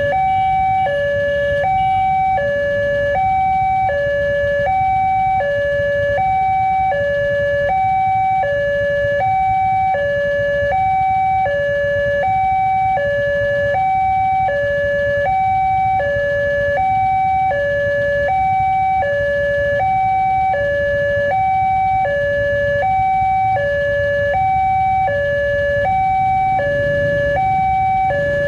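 Railway level-crossing warning alarm sounding its two-tone chime: a higher and a lower note alternate in a steady, even rhythm while the crossing is closed for an approaching train.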